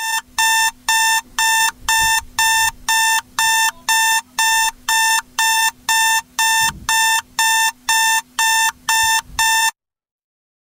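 Digital alarm clock beeping, an even beep-beep of short electronic tones about two a second, cutting off suddenly near the end.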